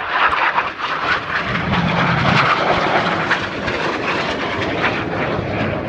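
BAE Hawk T1 jet trainers flying past, the engine noise swelling about two seconds in and then holding steady.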